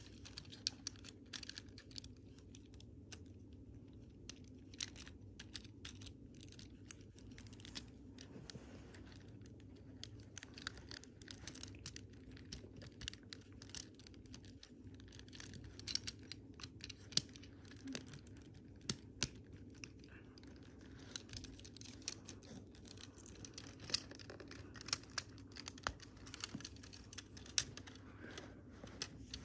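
Small irregular clicks and clacks of Lego Technic plastic parts being handled and snapped together, over a faint steady low hum.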